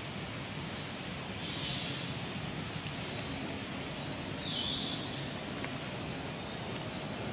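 Steady outdoor background hiss, with two brief faint high-pitched chirps about a second and a half and about four and a half seconds in.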